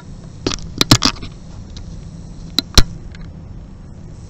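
Handling noise on a desk: a few sharp clicks and knocks, clustered about a second in and again near three seconds, over a low steady hum.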